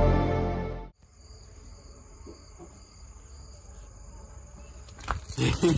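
Background music fades out in the first second, leaving crickets trilling faintly with a steady high-pitched chirring. Near the end, a run of loud clicks and knocks starts.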